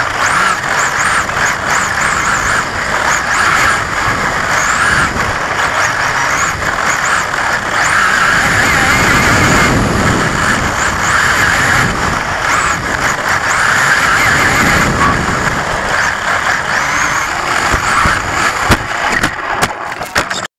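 XRAY XB4 1:10 electric four-wheel-drive buggy at speed, heard from a camera mounted on the car: a high motor and drivetrain whine that rises and falls in pitch with the throttle, over tyre and wind noise. A couple of sharp knocks come near the end.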